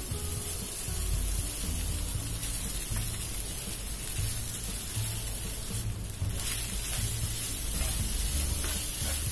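Background music with low notes, over a faint sizzle as cooked rice is stirred with a wooden spatula into fried onions and garlic in a hot pan.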